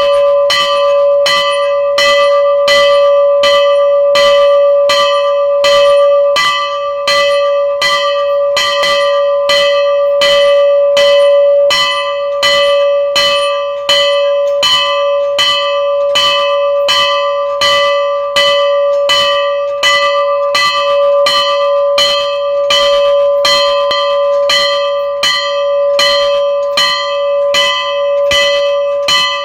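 A metal temple bell rung rapidly and continuously, about two to three strikes a second, its tone ringing on between strikes.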